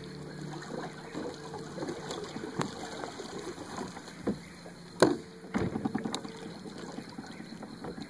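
Knocks and rattles on a small boat's hull and gear, with water sounds and a low steady hum underneath; one sharp knock about five seconds in is the loudest, followed by about a second of clatter.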